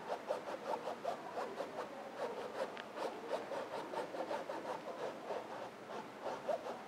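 Paintbrush scrubbing and dabbing acrylic paint onto a stretched canvas in many short, quick, scratchy strokes.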